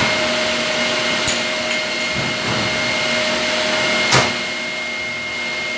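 Electric ventilation blower running steadily, a whirring drone with a constant whine, as used for the air handling and respirators of an asbestos-removal containment. A sharp knock about four seconds in.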